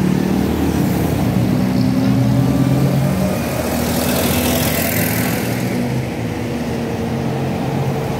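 Busy street traffic: vehicle engines running steadily close by, with a rushing hiss from a passing vehicle about four to five seconds in.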